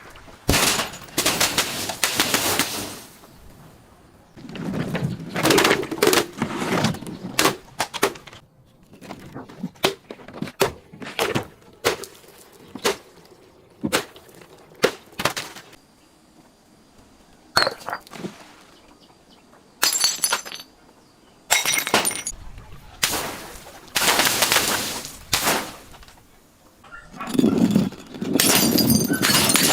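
Glass bottles and other brittle objects being crushed and breaking: bursts of crunching and shattering a few seconds long, with many sharp single cracks between them.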